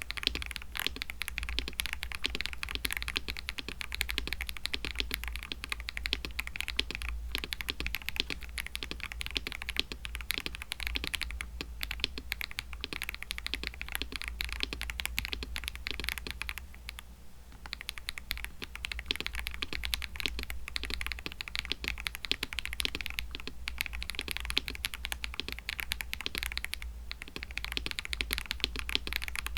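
Continuous fast typing on a mechanical keyboard fitted with lubed Akko CS switches, with a brief pause about halfway through.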